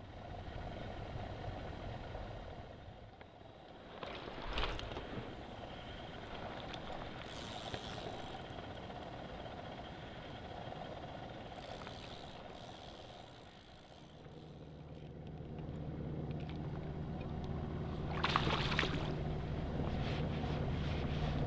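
A hooked striped bass splashing at the surface, loudest about 18 seconds in, over a steady low mechanical hum.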